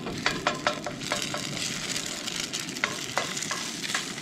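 Egg frying and sizzling in a cast iron skillet, with a black spatula scraping and tapping against the pan several times as it breaks up the egg.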